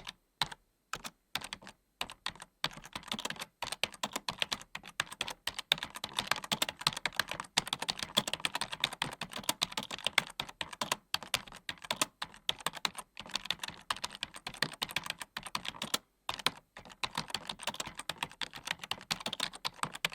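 Computer keyboard being typed on continuously: a rapid, uneven run of key clicks with brief pauses between bursts.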